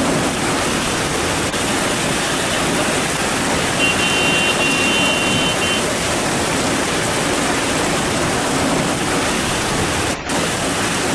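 Heavy rain pouring down in a steady loud hiss. A brief high-pitched tone sounds over it about four seconds in and lasts about two seconds, and the noise drops out for a moment just after ten seconds.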